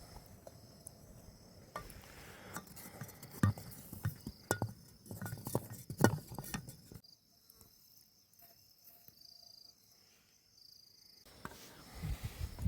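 Insects trilling steadily at a high pitch, with a scattered run of sharp clicks and knocks in the first half. The knocks stop abruptly about seven seconds in, leaving only the insects, and return briefly near the end.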